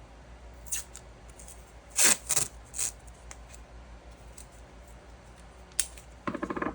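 Short handling noises while working with craft materials: a few sharp clicks and scrapes, the loudest cluster about two seconds in, then a brief rasping rip near the end.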